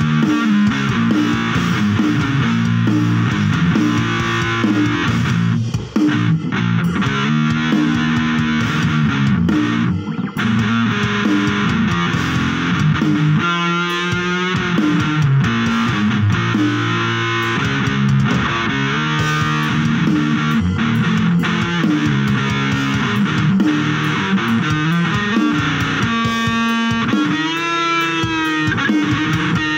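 Electric guitar playing rock riffs of chords and repeated notes, with wavering, bent lead notes about halfway through and again near the end.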